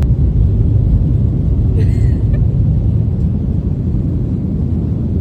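Steady, loud low rumble of a vehicle in motion, with a short high voice-like sound about two seconds in.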